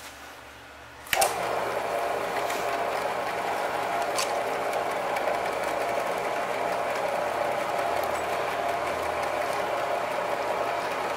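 Horizontal bandsaw switched on about a second in, its motor and band blade then running steadily with coolant flowing onto the blade. The blade is running free, not yet fed down into the aluminum plate.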